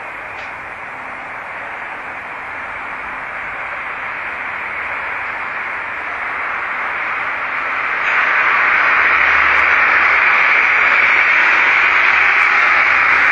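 Steady hissing noise that slowly grows louder and steps up sharply about eight seconds in.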